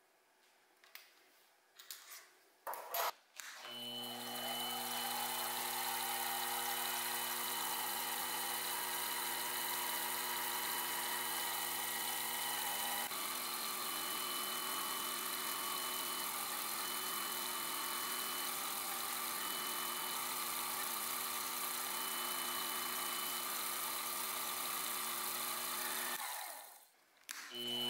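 A few sharp clicks of a hex key tightening a small machine vise, then a benchtop milling machine's spindle motor starts and runs steadily as a small drill bit drills into a small metal part. The spindle stops near the end and starts again just after.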